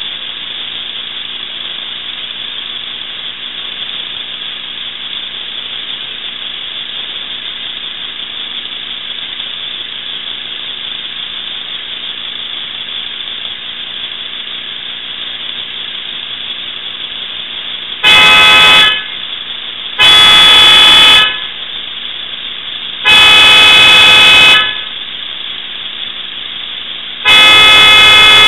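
A car horn honked four times in long blasts of one to one and a half seconds each, loud enough to distort, starting after a long stretch of steady hiss.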